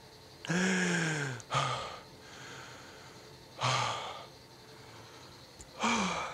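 A man laughing breathlessly, so hard he can barely voice it: four wheezing, gasping bursts, two of them strained cries that fall in pitch, with quiet stretches between.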